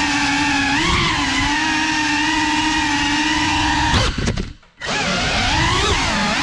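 Cinelog35 cinewhoop drone's brushless motors and propellers whining, the pitch rising and falling with the throttle. About four seconds in the whine breaks up and drops out for under a second, then spools back up.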